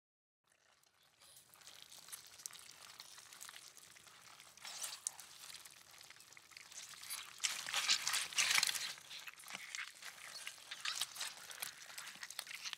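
Foley gore 'gush': wet chamois cloths and a small silicone ball squeezed in the hands for squishing, dripping blood and ooze, with a wheezy squelch. It starts after about a second of quiet and comes in waves, loudest around eight seconds in.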